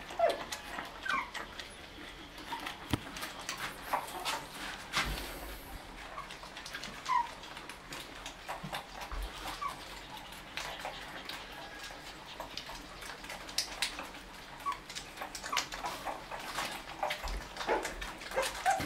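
Shih Tzu puppies nursing from their mother, giving brief squeaking cries every few seconds, with light clicks and scuffles throughout.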